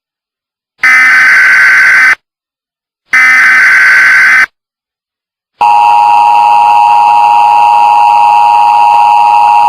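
Emergency Alert System tones: two loud SAME header data bursts, each about a second and a half long with a second's gap between them, then a little past halfway the steady two-tone EAS attention signal starts and holds. These tones announce an emergency alert message.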